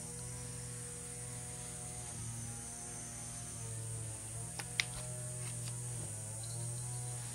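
Steady low hum of a portable fan heater running, with a couple of sharp clicks a little after the middle.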